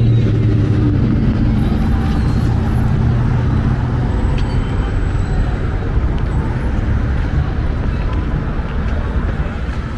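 Street traffic noise. A nearby vehicle's engine is running with a low, steady hum that fades out about four seconds in, leaving the wash of passing traffic.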